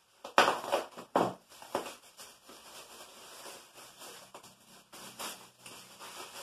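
Plastic packaging crinkling and rustling as a wrapped ceramic piece is pulled out and unwrapped by hand. A few sharp, louder crackles come in the first couple of seconds, followed by steady softer rustling.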